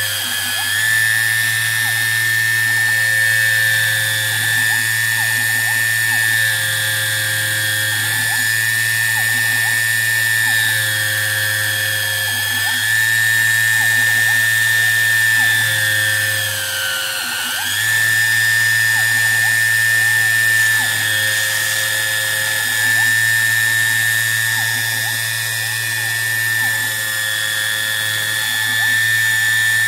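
Home-built CNC lathe at work on brass bar: the high-speed motor driving a small slitting-saw cutter whines steadily, dipping briefly in pitch about halfway through as it loads up, over a low hum. Short, low mechanical tones come in every few seconds.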